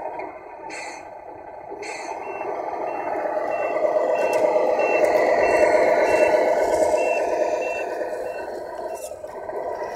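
Tamiya MFC-01 sound unit on a 1/14 RC Scania truck playing its simulated diesel engine sound through the truck's speaker, swelling and fading again. From about two seconds in, its reversing warning beeper sounds about one and a half times a second. Two short noises come near the start.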